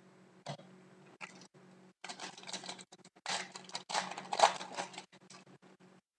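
Hockey trading cards being handled: a few sharp separate clicks, then about three seconds of dense rustling and flicking, with a few more clicks near the end.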